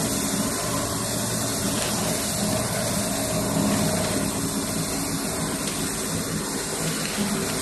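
Paper slitter rewinder machine running steadily while it slits unbleached kraft paper and winds it onto narrow rolls: a constant machine noise with a low hum underneath.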